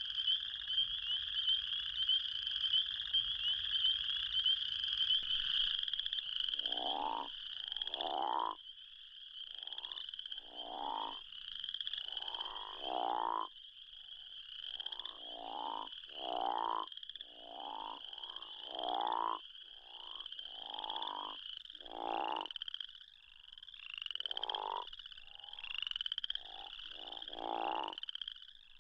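Recorded crawfish frog calls: deep snoring "wah" calls, each about half a second long, begin about six seconds in and repeat roughly once a second. They sound over a continuous high chorus of spring peepers and Cajun chorus frogs calling at the same time.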